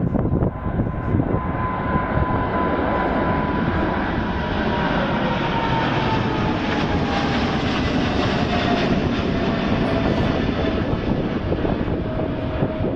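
Boeing 777-300ER's twin GE90 turbofans at takeoff thrust as the airliner climbs away: steady jet engine noise with a thin whine that slowly falls in pitch.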